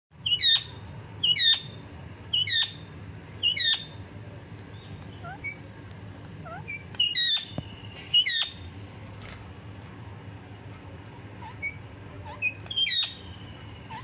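Rose-ringed parakeet screeching: four loud harsh calls about a second apart, then two more after a pause and a last one near the end, with softer short chirps in between.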